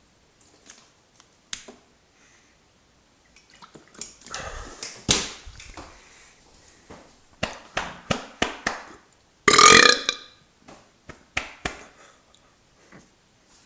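A person belching from the gas of a fizzy ginger beer, with one loud, long burp about nine and a half seconds in. Short sharp clicks and smaller sounds come before and after it.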